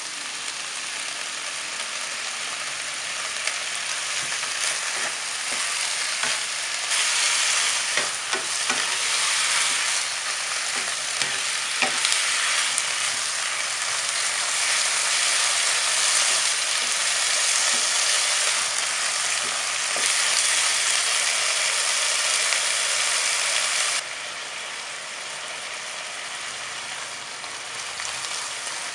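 Pork and Brussels sprouts sizzling in a nonstick wok while a wooden spatula stirs them, with a few knocks of the spatula against the pan. The sizzle grows louder about seven seconds in and drops suddenly about five seconds before the end.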